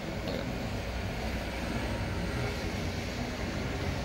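Steady low rumbling background noise, with no clear events standing out.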